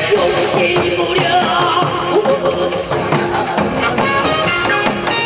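Amplified live Korean pumba folk music: a band with janggu drum and drum kit plays a steady beat, with a singer's voice over it.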